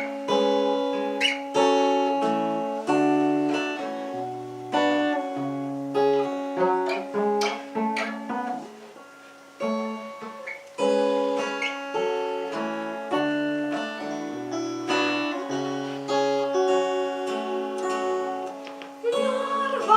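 Acoustic guitar playing a song's introduction: picked chords over a moving bass line, with a short break about halfway through.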